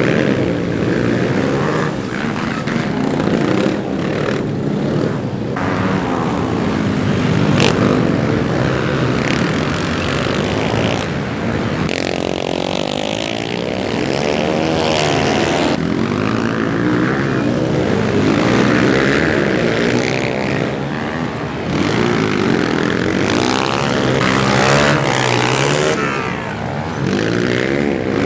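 Several dirt bike engines racing together, with overlapping engine notes rising and falling as the riders rev up and back off around the dirt track.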